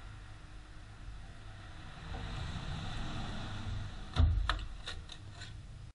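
Car engine idling with a steady low rumble. About four seconds in comes a sudden loud knock, followed by several sharp clicks.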